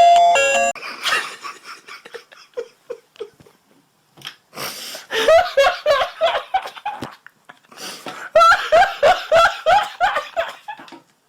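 A girl's high-pitched laughter in quick repeated bursts, in two long fits, the first starting about five seconds in and the second about eight seconds in, after a few short soft giggles.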